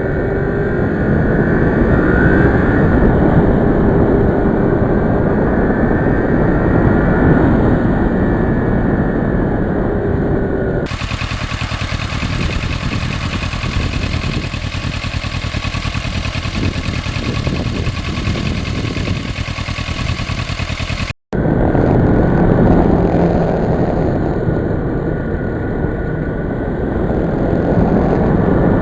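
Motorcycle engine running on the road while riding, with a steady rushing noise. About a third of the way in it changes to a more even hiss, and there is a momentary dropout about two-thirds through before the engine sound returns.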